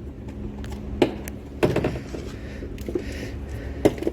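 Hands and tools working on parts under a car's dashboard: a few sharp knocks and clicks, about a second in, near two seconds and just before the end, over a steady low hum.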